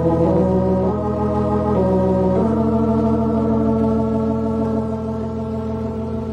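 Organ music bridge marking a scene change: a few sustained chords that shift about a third of a second, two seconds and two and a half seconds in, then one long held chord.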